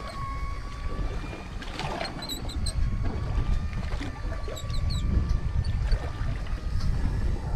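Uneven low rumble of water and wind around a small open fishing boat at sea, with a faint thin steady whine and a few faint high chirps over it.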